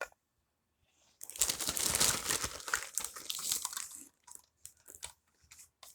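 Packaging crinkling and rustling as toy pieces are handled. The rustle lasts about three seconds, starting a little over a second in, and is followed by a few light clicks.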